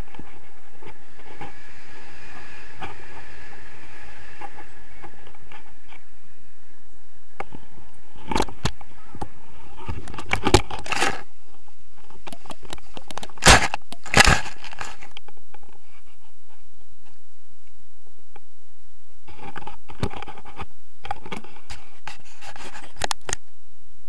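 Wind rushing over an action camera's microphone during a tandem paraglider landing, with a cluster of knocks and scrapes from the camera and harness gear from about eight to fifteen seconds in, loudest near ten and fourteen seconds. A few smaller knocks follow later.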